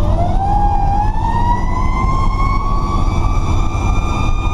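Fire truck siren winding up, its pitch rising slowly for about three seconds and then holding steady, over the low running of the 2003 Pierce Dash ladder truck's diesel engine.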